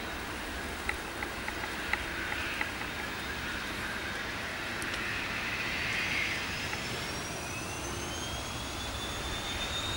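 Twin Pratt & Whitney PW530A turbofans of a Cessna Citation Bravo business jet running with a steady rush, then a whine that rises in pitch from about halfway as the engines spool up to takeoff power. A few sharp ticks come about a second in.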